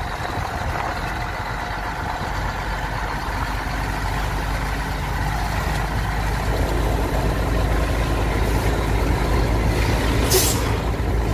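Heavy truck's engine running steadily inside the cab, with road noise, growing louder from about halfway through. A short hiss of air near the end.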